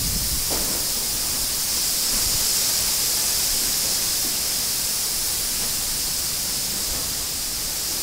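Strong wind rushing through trees as a steady, loud hiss, with an uneven low rumble of gusts underneath.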